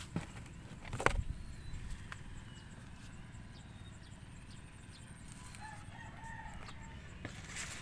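A rooster crows faintly about six seconds in, over low wind rumble on the microphone. A sharp knock about a second in is the loudest sound.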